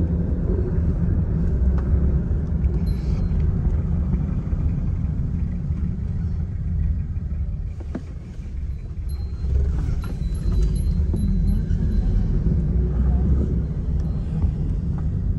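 Steady low rumble of a car in motion: engine and road noise.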